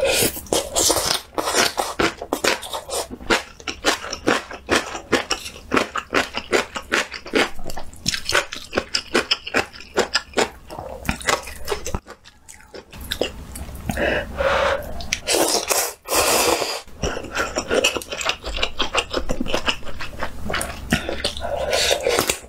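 Close-miked crunching and chewing of crisp spicy pickled radish chunks, a rapid run of crisp crunches. After a short pause about halfway through come longer slurping sounds as instant noodles are sucked in, then crunchy chewing again.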